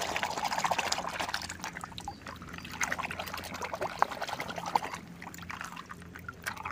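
A hand sloshing and splashing through a basin of muddy water, feeling for a toy car, with trickling and dripping water. The splashing is busiest in the first couple of seconds, then becomes intermittent with a few sharp clicks.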